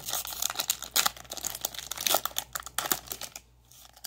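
Foil wrapper of a Yu-Gi-Oh! booster pack crinkling and crackling as it is torn open by hand, stopping about three and a half seconds in.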